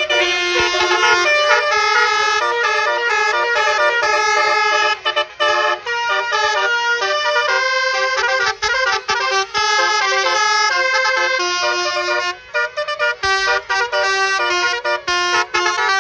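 Telolet horns: a set of multi-tone vehicle air horns playing a fast tune of stepped notes. The notes turn short and choppy in the second half.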